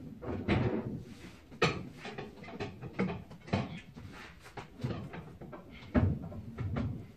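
Irregular metal clunks and knocks, about one or two a second, as an engine hoist and the motor are worked into place in a 1966 Ford truck.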